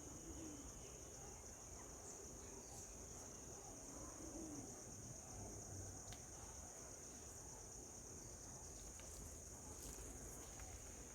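Faint, steady high-pitched insect drone, unbroken throughout, with a few faint ticks.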